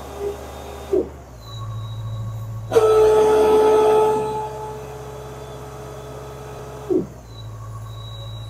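Air-driven power reamer, a pneumatic stay-bolt reamer, being run in short bursts. Its steady whine cuts out about a second in with a falling pitch as it spins down, starts again abruptly near the three-second mark, runs for about four seconds, and spins down again near the end.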